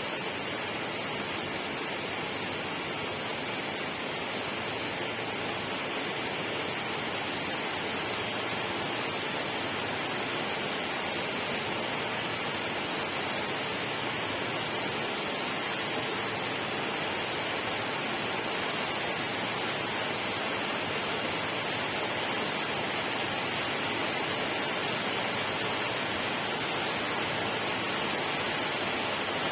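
Steady rushing water, an even hiss that does not change or break.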